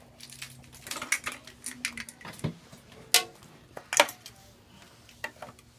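Plastic toy eggs clicking and knocking against each other and a plastic egg tray as a toddler handles them, in scattered light knocks; the two loudest come about three and four seconds in.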